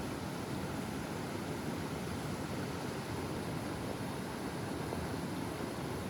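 Steady, even rush of mountain stream water.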